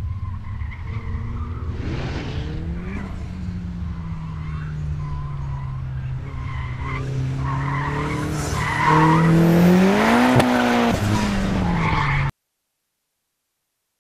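AWD 1990 Dodge Colt's 4G63 inline-four engine revving up and down through autocross corners, with tyres squealing. It is loudest near the end, rising and then falling in pitch, and the sound cuts off suddenly.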